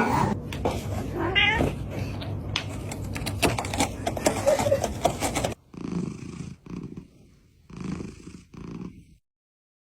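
A domestic cat making a short meow over a low, steady rumble with scattered clicks. After a cut, a few short, separate noisy sounds follow.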